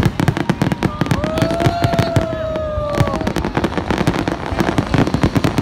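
Fireworks display going off in a dense, rapid barrage of bangs and crackles. From about a second in, a long held tone sounds over it for about two seconds.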